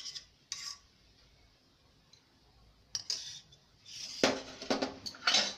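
Metal spoon and ladle clinking and scraping against an aluminium cooking pot while ghee is stirred into khichuri. A few clinks at the start, a single clink about three seconds in, then a run of clinks and scraping from about four seconds in.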